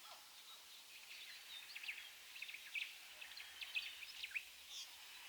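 Faint birdsong in a forest ambience: many short chirps and twitters, scattered throughout, over a soft steady hiss.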